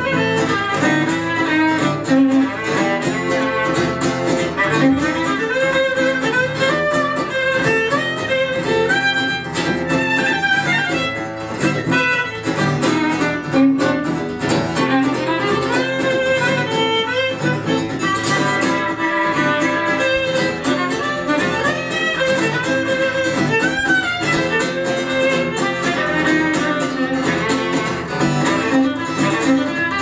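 Instrumental break of a live folk-rock song: electro-acoustic guitar strumming steadily under a gliding melody line.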